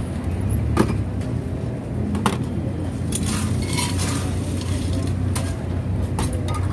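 Kitchenware clinking and clattering as drinks are made, with two sharp knocks about one and two seconds in and a busier stretch of clatter in the middle, over a steady low hum.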